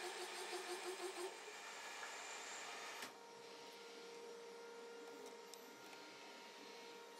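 Metalworking machine boring a hub bore in a light pass. A rhythmic cutting pulse about five times a second fades out about a second in, the sound drops about three seconds in, and a steady machine hum with a fixed tone is left.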